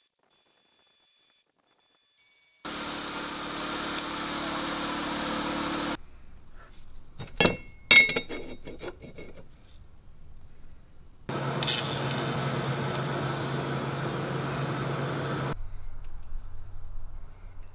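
Workshop machine running steadily for a few seconds, then a few sharp metal clinks, then another machine running steadily for about four seconds before cutting off.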